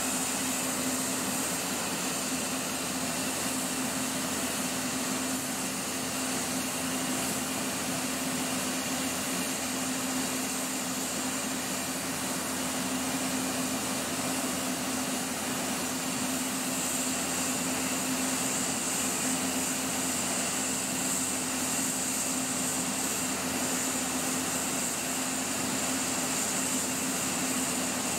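A standing electric locomotive running its blowers and auxiliary machinery: a steady whirring hum with one constant low tone.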